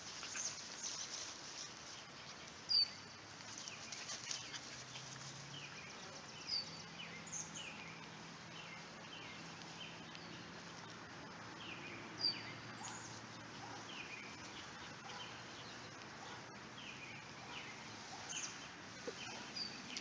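Birds chirping: short high chirps every few seconds among repeated short falling notes, over a faint low hum.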